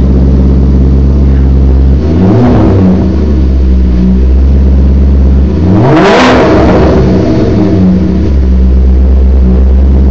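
2002 Maserati Spyder's 4.2-litre V8 idling through a LARINI X-pipe and sports muffler exhaust, revved twice: a short blip about two seconds in and a higher rev just past the middle. Each rev falls back to idle.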